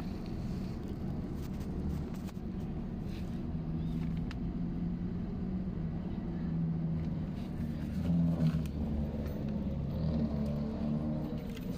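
Nissan Almera's engine running steadily with a low hum.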